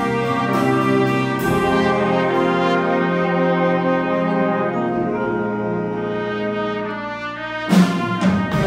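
Big-band jazz ensemble of saxophones, trumpets and trombones playing long held chords with the drums dropping out, then the full band with drums and cymbals coming back in with a sudden loud hit near the end.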